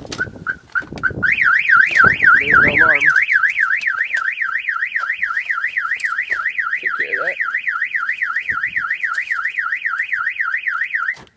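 Pickup truck's car alarm siren going off as the door is opened: a few short beeps, then a loud warbling tone swinging up and down about four times a second, which cuts off suddenly near the end.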